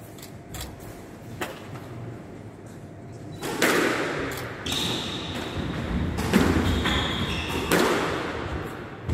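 Squash rally: the ball is struck by rackets and hits the court walls, about four sharp echoing smacks starting some three and a half seconds in, after a quiet stretch with a couple of faint taps. Sneakers give brief high squeaks on the wooden floor between shots.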